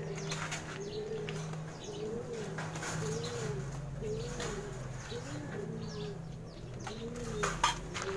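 Racing pigeons cooing over and over, about one arched coo a second. Near the end a short clatter and wing flapping as a pigeon is taken in hand.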